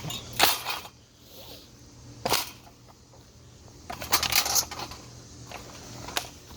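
Metallic clanks and clattering from a ceiling fan being knocked about and broken apart: a few hits about half a second in, one sharp clank about two seconds in, and a longer clatter about four seconds in, over a faint steady low hum.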